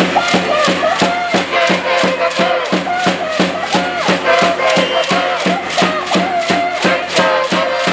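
Cheering section chanting and singing together in unison over a fast, steady beat of sharp claps, about four a second.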